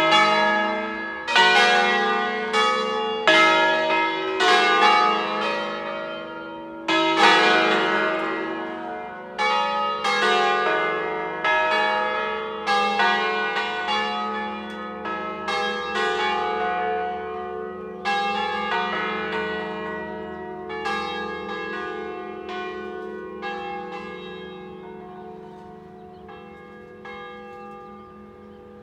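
A full swinging peal of five church bells tuned to E3, cast by Felice Bizzozero in 1818, striking in overlapping, irregular strokes with long ringing tails. The strokes become fewer and fainter toward the end as the peal dies down.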